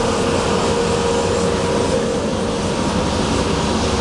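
A 70-kilo drum coffee roaster running mid-roast: a steady, loud machine noise with an even hum.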